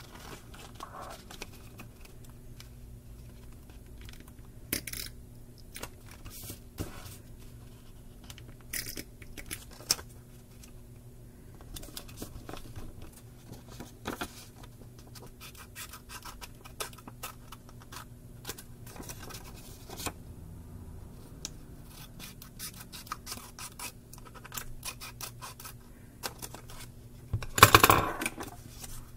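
Paper being handled: calendar strips and notebook pages rustling, sliding and scratching under the fingers, with scattered small taps. A louder rasp lasting about a second comes near the end.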